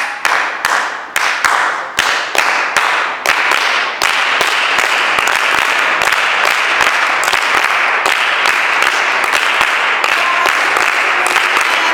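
A crowd clapping in rhythm: first a beat of separate sharp claps, then, from about four seconds in, many hands clapping densely with the beat still showing through.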